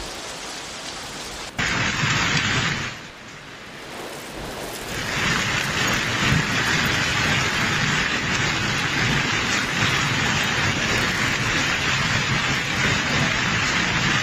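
Heavy downpour of rain and hail, a steady rushing hiss. It jumps suddenly louder about one and a half seconds in, eases for a couple of seconds, then settles into a louder steady downpour.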